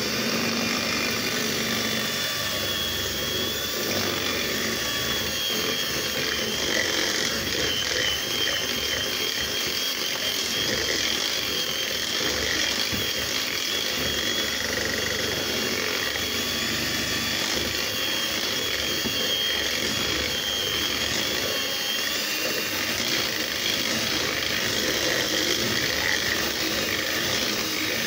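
Electric hand mixer running steadily, its beaters whisking cake batter in a stainless steel bowl to a soft consistency, with a high motor whine that fades about three-quarters of the way through.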